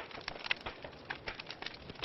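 Wood fire burning in a fireplace, crackling with irregular sharp pops and snaps over a low steady hiss.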